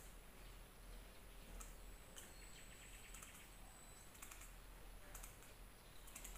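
Near silence: faint room tone with a low hum, a few scattered faint clicks, and a faint thin high chirp near the middle.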